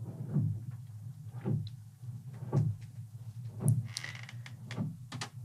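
Soft low thuds at an even pace, about one a second, over a steady low hum, with a brief cluster of clicks a little before the end.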